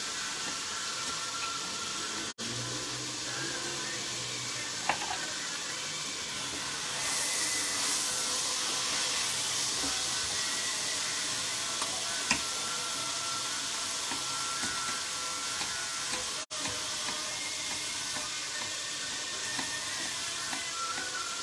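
Onions and carrots sizzling steadily in olive oil in a pot, a little louder for a few seconds near the middle, with a few sharp knife taps on a wooden chopping board.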